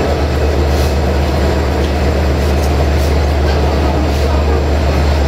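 EMD-engined CFR class 64 ('GM') diesel-electric locomotive running at a standstill or crawl, its diesel engine giving a steady, loud low drone.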